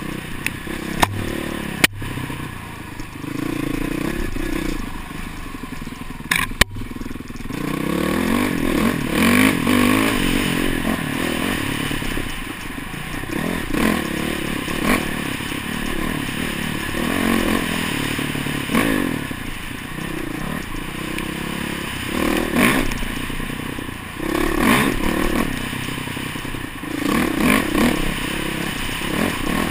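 Dirt bike engine heard from a helmet-mounted camera, its pitch rising and falling every second or two as the throttle is opened and closed along a bumpy trail. A few sharp knocks come in the first seven seconds.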